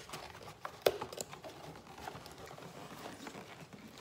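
Cardboard boxes and packaging being handled: scattered taps, scrapes and rustles, with one sharp knock about a second in.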